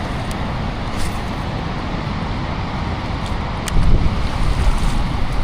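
Steady rush of water pouring over a dam spillway, with wind buffeting the microphone, gusting harder about four seconds in.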